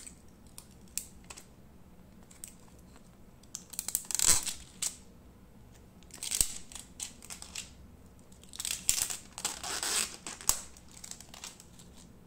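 Fingers handling a clear plastic phone case: small clicks, then three bouts of crinkling and rustling plastic.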